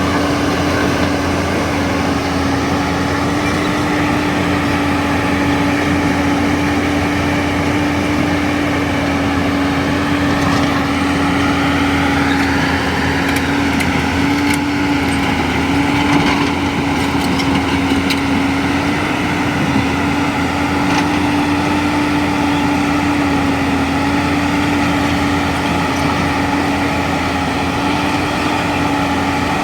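Excavator's diesel engine running steadily under work, with a hydraulic whine that rises and falls in pitch around the middle. A few knocks come in the middle.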